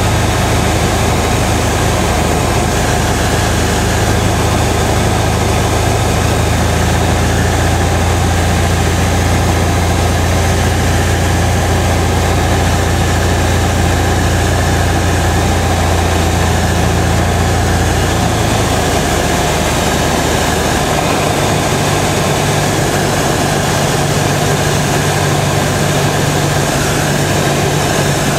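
Cessna 172's piston engine and propeller droning steadily, heard inside the cabin with air noise. The engine note changes about two-thirds of the way through.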